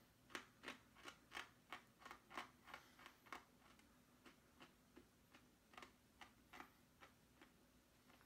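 Faint crunching of hard, crunchy Bissli wheat snacks being chewed, about three crunches a second, growing sparser and fainter after about three seconds as the mouthful breaks down.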